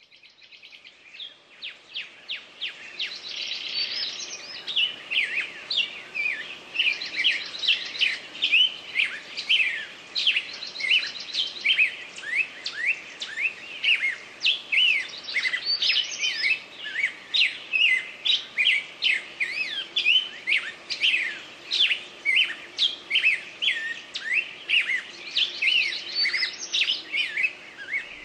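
Many small birds chirping and singing together in a dense, continuous chorus, fading in from silence over the first few seconds.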